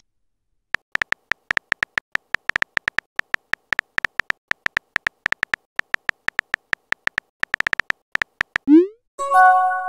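Phone keyboard key-click sound effects, one short click per letter in a quick, uneven run as a text message is typed. Near the end comes a short rising whoosh as the message is sent, then a brief electronic chime.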